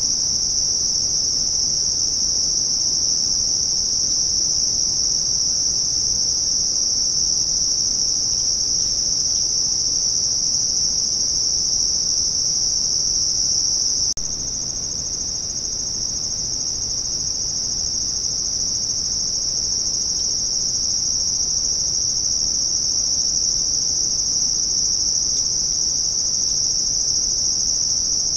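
Steady night chorus of crickets, a continuous high-pitched trill with no breaks; it becomes slightly quieter about halfway through.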